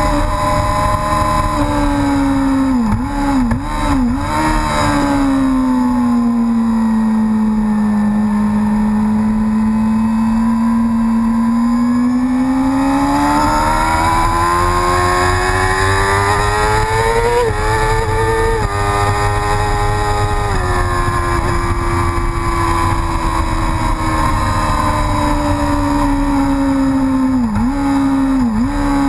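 Racing motorcycle engine running hard on a track, with wind rush on the onboard microphone. The engine pitch sinks slowly, climbs as the bike accelerates, and drops in steps at a few quick gear changes, with short dips in revs near the start and again near the end.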